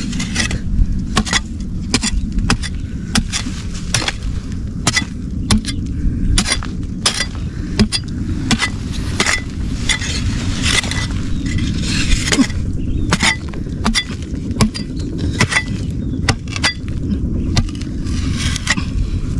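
Digging at a crab hole: a tool knocking and chinking into the soil, one or two sharp strikes a second at uneven spacing, over a steady low rumble.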